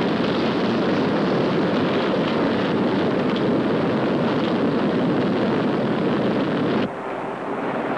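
Explosion in a ship's cargo hold of chemical drums: a heavy, steady roar that cuts off suddenly about seven seconds in.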